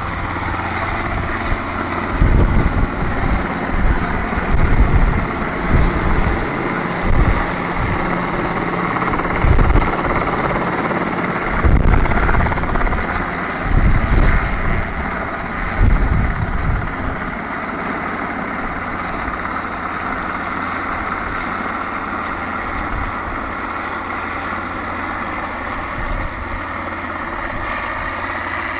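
Robinson R22 helicopter's piston engine and rotors running as it flies close overhead and then away. Irregular low buffeting and thuds on the microphone for the first two-thirds, then a steadier, slightly fainter drone as it draws off.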